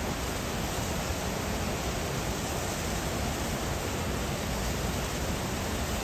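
Water discharging from a dam's gates and crashing into the river below, a steady rushing noise with the churning of the rapids downstream.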